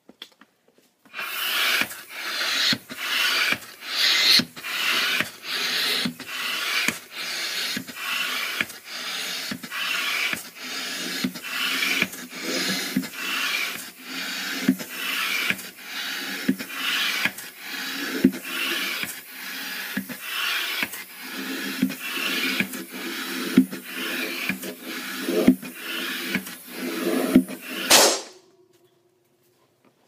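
Hand air pump inflating a balloon through its hose: a rhythmic rush of air about once a second, with a click at each turn of the stroke. Near the end it stops suddenly with a sharp sound as the balloon bursts.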